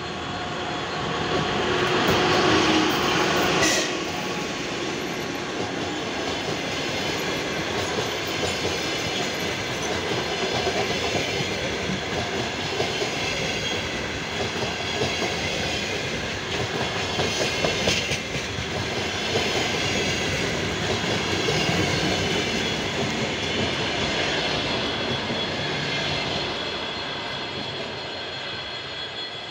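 EP2K passenger diesel locomotive passes close by, loudest in the first few seconds. Then a long string of double-deck passenger coaches rolls past with steady rail noise and the clatter of wheels over joints, easing off near the end as the train moves away.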